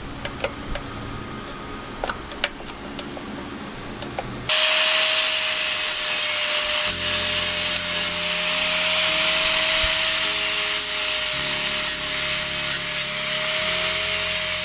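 A few light clicks, then about four and a half seconds in a power cutting tool starts suddenly. It runs steadily with a high whine and a gritty cutting noise as it cuts the sheet metal of a rusty car door post.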